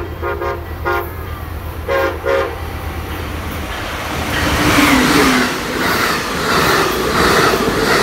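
A train horn gives several short toots in the first couple of seconds. Then, from about four seconds in, an Amtrak Pacific Surfliner led by a Siemens SC-44 Charger locomotive comes through, growing louder, its wheels clacking over the rail joints about every half second.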